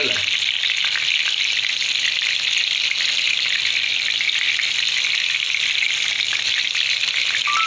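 Masala-coated mullet pieces shallow-frying in hot oil in a pan, a steady dense sizzle with fine crackles throughout.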